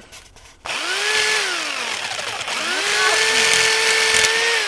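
Electric jigsaw sawing through PVC pipe. The motor starts about half a second in and its whine rises, then drops off around two seconds in, then climbs again and holds steady while the blade cuts.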